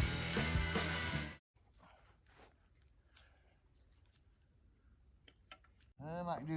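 Background music that cuts off about a second and a half in, followed by crickets chirping in a steady high trill, with a few faint clicks. A man's voice starts near the end.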